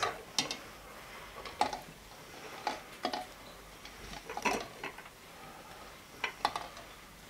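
Eggs being set one by one into a stainless steel pot of water: light, irregular clicks and knocks as the shells touch the pot and each other.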